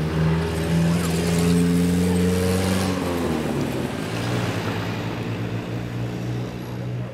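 A motor vehicle's engine running close by, its pitch dropping about three seconds in as it goes past, then slowly fading.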